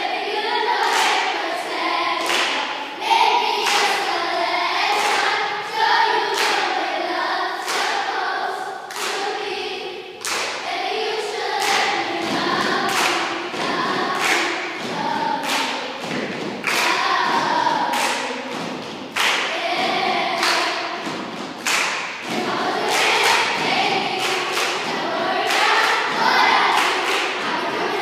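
A group of children chanting in unison while stomping in a steady beat, the stomps landing about once or twice a second over the voices.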